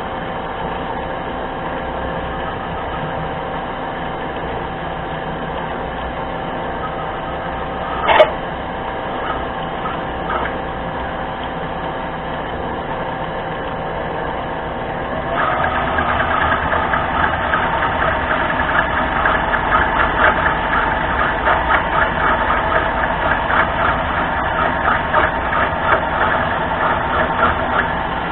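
Mini lathe running with a steady motor and gear whine, a sharp click about eight seconds in, then from about halfway a louder, rough, rhythmic cutting sound as the tool bites into a workpiece that sticks out too far from the chuck.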